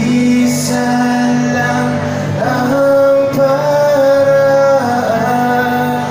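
Live acoustic band music: two acoustic guitars strummed under a sung melody of long held notes, the longest held about halfway through.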